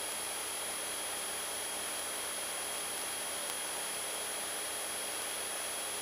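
Steady hiss of an aircraft intercom audio feed, with the Citabria's engine droning faintly underneath at climb power.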